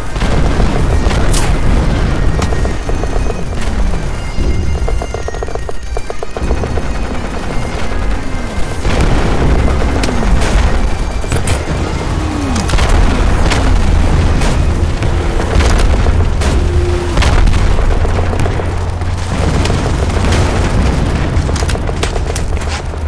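Layered battlefield sound effect of an artillery barrage: a continuous low rumble of distant shelling with many falling whistles of incoming shells, mixed with scattered rifle shots and bursts of machine-gun fire.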